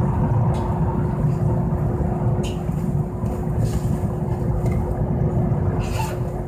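Steady low rumble and a constant hum inside a standing Mo 780 tram, as cars pass close by outside. Two short ticks, about two and a half seconds in and again near the end.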